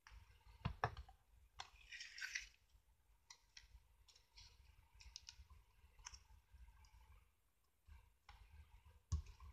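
Faint handling of paper cardstock: scattered small clicks and taps, with a brief paper rustle about two seconds in, as a patterned card layer is positioned and pressed flat onto a card base.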